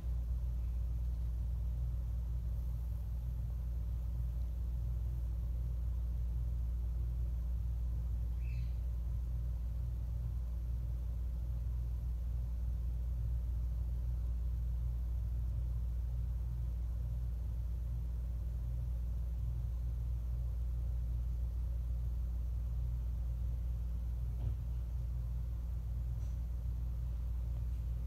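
Hampton Bay ceiling fan running steadily: a low, even hum and rumble from the motor and the moving air.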